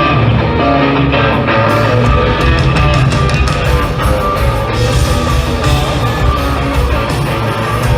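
A live country-rock band playing loud through an amphitheatre sound system: driving electric guitar over bass and drums. The sound gets brighter about two seconds in, as crisp hits join in the highs.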